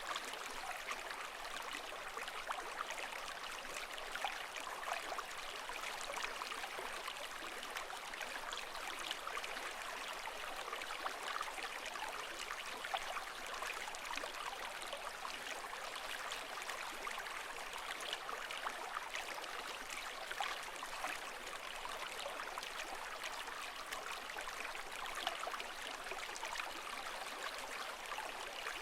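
Water flowing and gurgling steadily, a continuous babble of small splashes with no rise and fall of waves.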